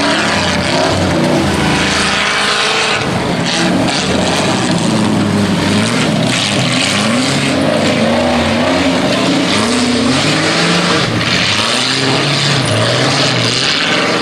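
Engines of several off-road race rigs revving hard at once as they race through snow, their overlapping pitches rising and falling unevenly with the throttle.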